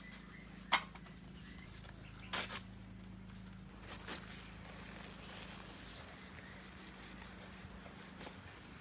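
Sharp clacks from a pickup's roll-out side awning being opened, its poles and frame knocking: one crisp click, then a louder double clatter about two and a half seconds in. A steady low hum lies under it.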